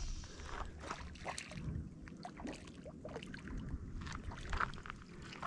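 A hooked fish splashing at the water's surface as it is reeled toward the bank, in irregular splashes.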